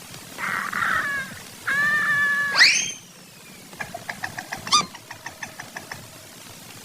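Soundtrack sound effects of animal-like cries: two short nasal cries, then a held squealing note that sweeps sharply up and falls away. After that comes a fast run of short chirping clicks, about six a second, for a couple of seconds.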